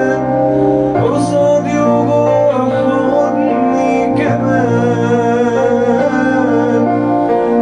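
Music: an Arabic pop song, a sung melody over held instrumental chords that change about every second.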